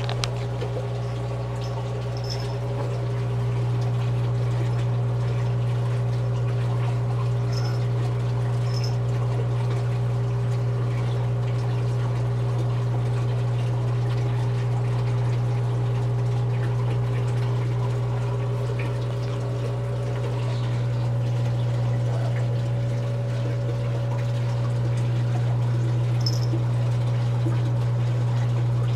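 Saltwater reef aquarium's pumps and circulating water: a steady low hum with water trickling and pouring.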